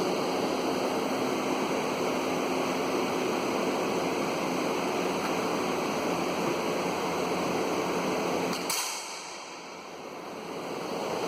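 Steady rushing noise, broken by one sharp click about nine seconds in; the noise then drops away and swells back up.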